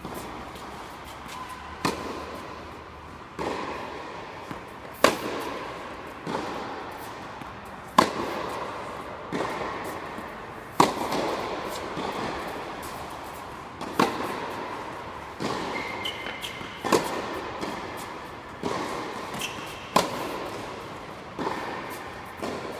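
Tennis balls struck with rackets in a baseline rally: a sharp pop about every second and a half, louder hits alternating with softer ones, each ringing on in the large indoor hall.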